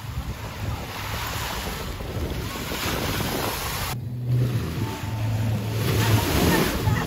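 Wind buffeting the microphone over the wash of small waves in shallow sea water. The sound breaks off about halfway through and resumes, now with a steady low hum under it.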